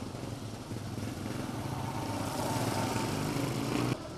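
A small engine running, growing louder over a couple of seconds, then cut off abruptly near the end.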